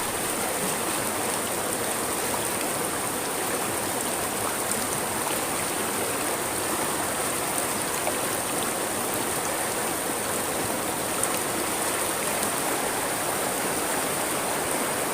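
Steady rush of a flowing stream, an even water noise with a constant high hiss above it.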